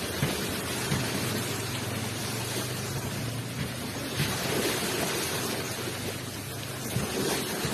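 Surf washing onto a shore: a steady rush of breaking water with a low rumble, a wave surging in about four seconds in.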